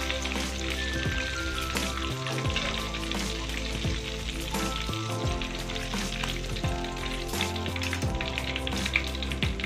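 Braised chicken pieces deep-frying in hot oil in a wok, a steady sizzle, under background music.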